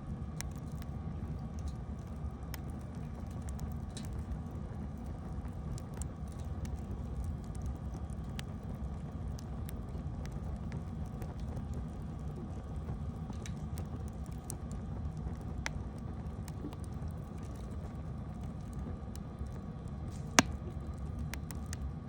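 Wood campfire burning with a steady low rumble and scattered crackles, and one loud sharp pop about twenty seconds in.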